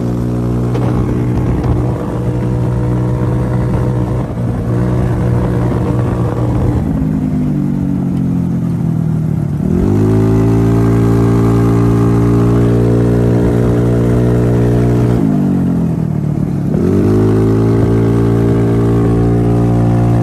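TrailMaster XRS 150 buggy's GY6-type 150cc single-cylinder four-stroke engine under way on a road run. The engine note slides down as it eases off about seven seconds in, jumps back up about ten seconds in and holds a steady high pitch under throttle, then dips and climbs back to the same steady note about fifteen to seventeen seconds in. It is running on a new performance ignition coil and iridium spark plug with the stock CDI.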